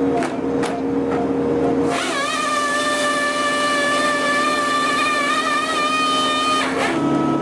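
An excavator-mounted firewood processor head at work: steady engine and hydraulic running with a few knocks. From about two seconds in, a high steady whine from the processor head rises briefly and then holds for about four and a half seconds before cutting off.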